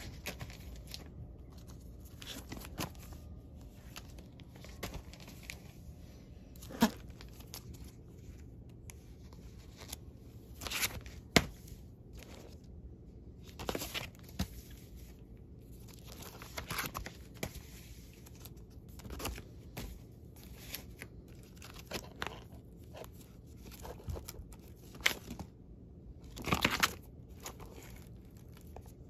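Vinyl LP records in plastic outer sleeves being flipped through in a bin: irregular crinkling of the plastic and sharp clicks as the jackets fall against one another.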